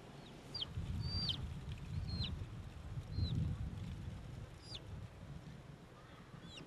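A bird chirping: about six short, high chirps spread over several seconds, several ending in a quick hook in pitch, over a low rumbling noise.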